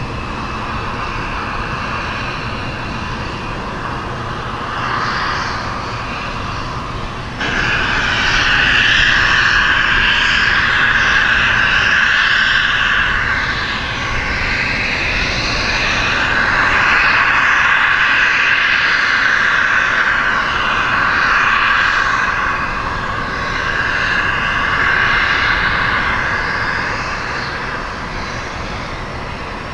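Airbus A300-600R airliner taxiing, its turbofan engines whining at low taxi power. The whine jumps louder suddenly about a quarter of the way in, then swells and eases a few times before dropping back near the end.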